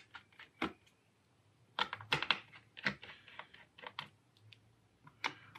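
Irregular small clicks and light metallic taps as a screwdriver undoes the screws in the metal base plate of an Apple Time Capsule, with a cluster about two seconds in and another around three to four seconds.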